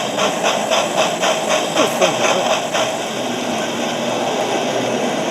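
Sound-fitted Hornby Duke of Gloucester model steam locomotive playing recorded exhaust chuffs through its onboard speaker, about five beats a second. The beats give way after two or three seconds to a steadier running sound.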